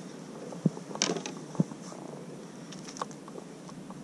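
Handling noises on a plastic fishing kayak while a small fish is held on its lure: a few sharp knocks and clicks, most of them in the first two seconds, with some creaking.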